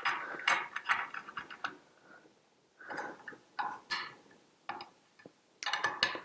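A 5 mm Allen key tightening the rear screws of a metal desk clamp: irregular runs of metallic clicks and clinks as the key is turned and refitted in the screw heads.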